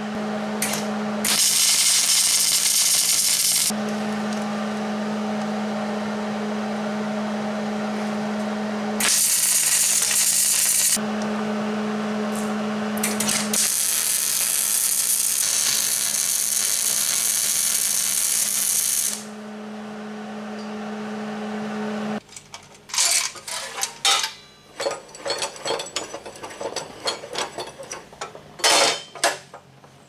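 Wire-feed welder tack-welding steel pipe to a steel base plate: a crackling arc hiss over a steady hum, in several stretches, stopping a little over two-thirds of the way through. Irregular clanks and clicks of metal being handled follow.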